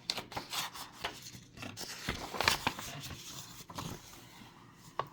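Paper rustling and scraping as a book's pages are handled and turned, in a string of irregular scratchy sounds, loudest about two and a half seconds in, with a short click near the end.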